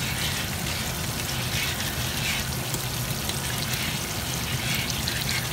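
Tomato sauce, thinned with boiling water, bubbling at a steady boil in a stainless steel pot: an even watery hiss.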